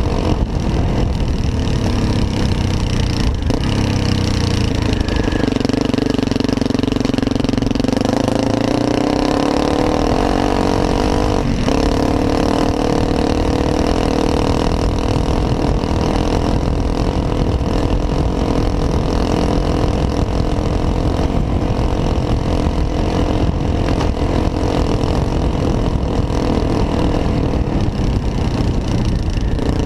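Honda CRF250L's single-cylinder four-stroke engine running at low speed under a steady rumble of riding noise. The engine note rises about eight seconds in and drops back about a dozen seconds in, following the throttle.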